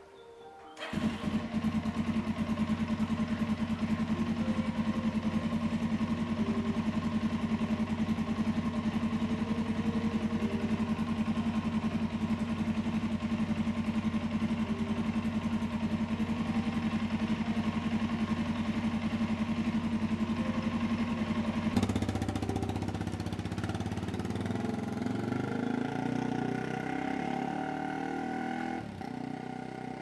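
Suzuki DR-Z400's single-cylinder four-stroke engine starting about a second in and idling steadily. About two-thirds of the way through it revs and pulls away, the pitch rising and falling as the motorcycle rides off and fades.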